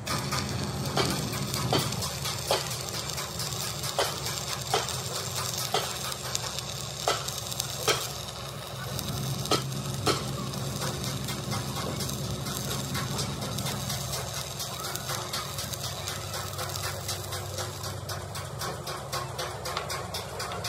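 Electric arc welding crackling steadily over a low machine hum, with scattered sharp metal taps through the first half.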